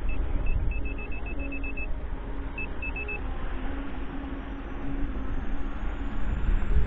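Handheld metal-detecting pinpointer beeping in quick high chirps, about seven or eight a second, in a burst of under two seconds and a short burst again around three seconds in, signalling metal in the sand of the dig hole. Wind noise on the microphone throughout.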